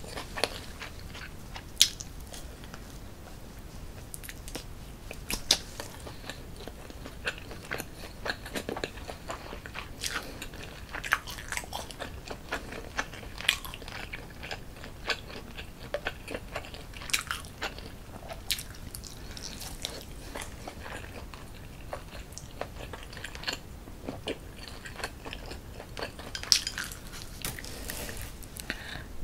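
A person biting and chewing food, including a grilled chicken skewer, close to a sensitive microphone: many small, sharp wet mouth clicks and smacks scattered over a quiet background.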